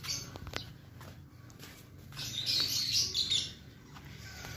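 Small caged parrots, budgerigars and lovebirds, chirping and chattering, most busily about halfway through, with a couple of light clicks in the first second.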